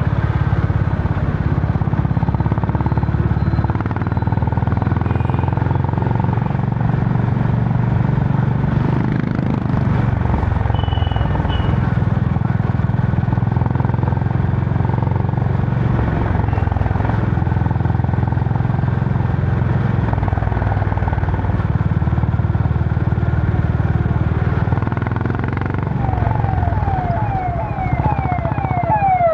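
Honda H'ness CB350's single-cylinder engine on its stock exhaust, running under way with small rises and falls in pitch. Near the end, a quick series of short falling tones sounds over it.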